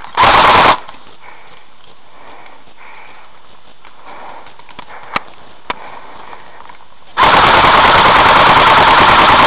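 Airsoft gun firing on full auto close by: a short burst of about half a second at the start, two sharp single clicks a half-second apart in the middle, then a long sustained burst from about seven seconds in.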